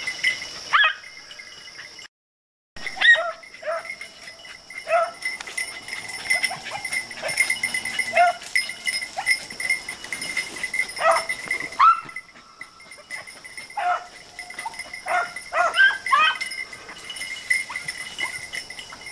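A pack of beagles baying and yelping on a rabbit's scent, many short, overlapping calls. Steady insect chirring runs underneath, and the sound cuts out for a moment about two seconds in.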